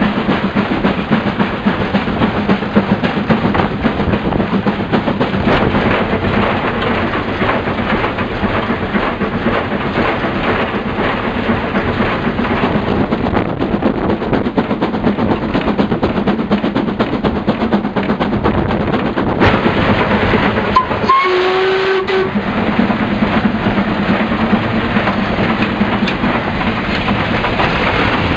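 LMS Black Five 4-6-0 steam locomotive heard from its footplate while running: a loud, steady din of the engine working, wheels clattering on the rails and rushing air. About three-quarters of the way through, a short whistle-like note sounds for about a second.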